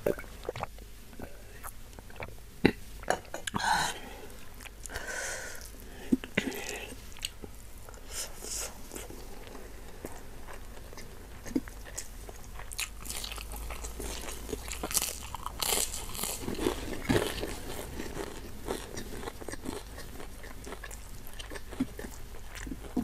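Close-miked eating sounds: a person chewing and crunching food, with many irregular small clicks and crackles.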